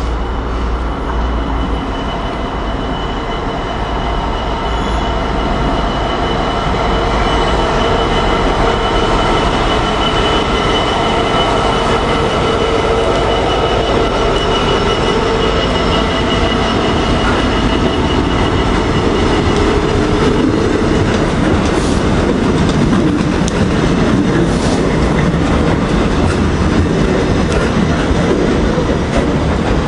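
Class 66 diesel-electric freight locomotive with its two-stroke V12 engine running, getting louder as it draws level and passes close by. The train's wagons then roll past with the rattle of wheels on the track.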